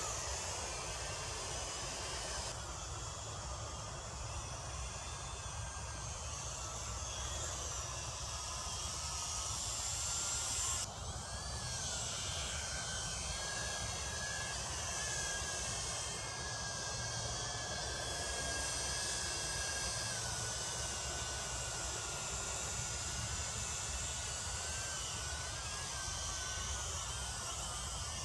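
UDI U829 toy quadcopter's motors and propellers whirring in flight, a high whine that wavers up and down in pitch as the throttle changes.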